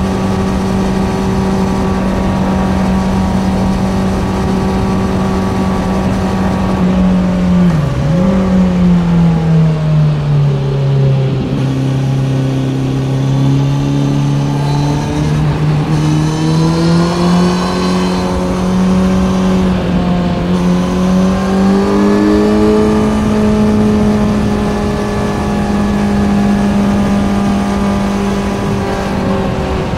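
Kawasaki Z900's inline-four engine running through an Ixil SX1 full exhaust system while the bike is ridden. The engine holds a steady note, the revs fall away about eight seconds in, and they climb back up from about fifteen seconds to hold steady again.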